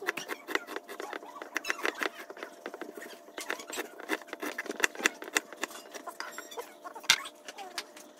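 A kitchen knife rapidly chopping red onion on a wooden board: quick, irregular taps of the blade striking the wood, several a second.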